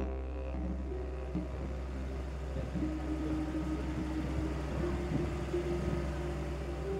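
Background music: a sustained low drone under long held tones.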